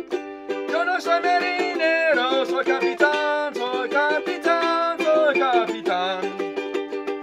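A man singing while strumming a ukulele in a steady rhythm.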